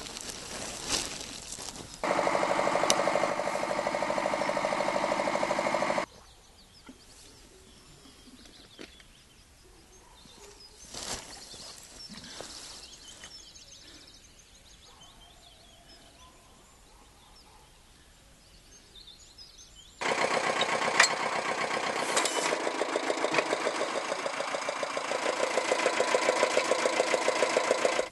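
A spade cutting into soil in the first two seconds. From about two seconds in, a small tractor engine runs steadily for about four seconds and cuts off suddenly. After a quieter stretch it runs again from about twenty seconds in, with a rapid regular pulsing.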